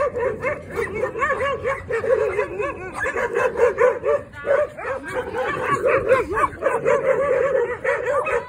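Small dog barking in a fast, unbroken string of high yips, about four or five a second.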